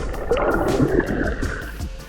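Background music, with a burst of noisy rushing, gurgling sound about half a second in.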